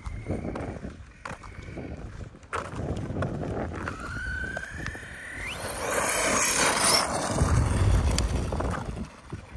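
Arrma Kraton 6S RC truck's brushless motor and drivetrain whining, rising in pitch about halfway through as it accelerates. A low rushing noise then builds and grows louder toward the end.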